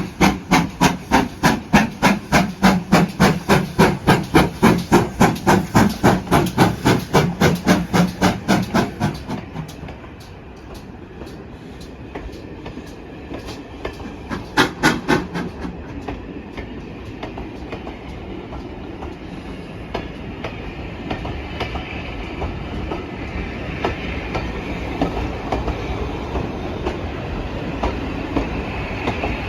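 GWR Manor-class 4-6-0 steam locomotive 7828 working hard, its exhaust beating about four times a second. The beats stop about nine seconds in as steam is shut off, with a brief few more around the middle, leaving the train rolling on the rails with wheel noise that grows louder near the end.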